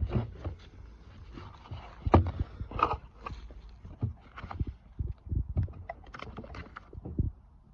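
Irregular knocks, taps and rustles of a box and its contents being handled and unpacked.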